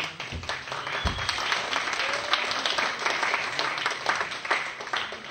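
Audience applauding, a dense patter of many hands clapping that dies away near the end, with a low thump about a second in.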